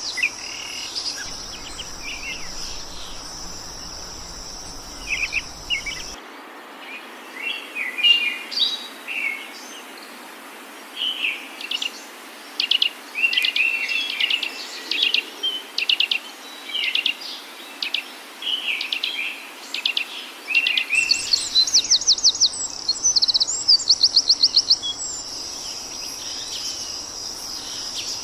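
Birds chirping with short, quick call notes over a steady high insect drone; the drone drops out for a long stretch in the middle, where the chirping is busiest, and a fast trill of even notes comes near the end.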